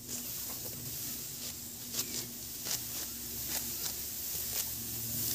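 Sickle cutting through dry, ripe rice stalks in a series of short, crisp strokes, roughly one every half second to second, with the rustle of stalks being gripped and gathered. A low steady hum runs underneath.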